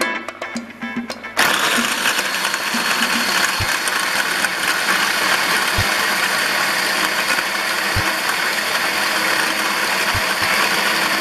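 Food processor switching on about a second and a half in and running steadily, its blade chopping carrot pieces with eggs and oil into a batter.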